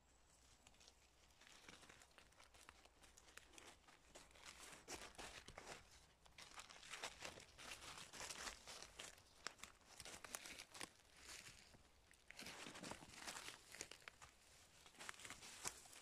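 Dry grass and fallen leaves rustling and crackling as a dog noses and pushes through them. The sound is faint at first, grows busy after a couple of seconds, eases briefly near the end, then picks up again.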